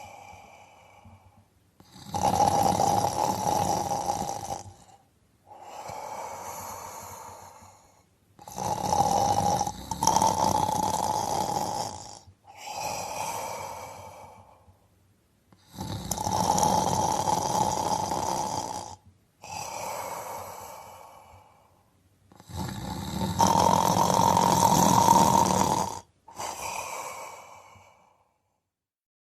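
A person snoring in a slow, regular rhythm. There are four loud, rasping snores, each about three seconds long, and each is followed by a softer, shorter breath. A pause of silence comes near the end.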